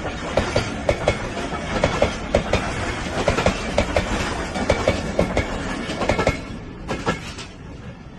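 A train passing close by, its wheels clattering in a quick, regular rhythm over the rail joints. The clatter ends about six to seven seconds in as the last cars pass, and the noise then falls away.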